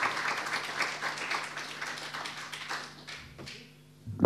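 Audience applauding a speaker, dense clapping that dies away about three seconds in. Near the end comes a single loud thump as the microphone on the podium stand is handled.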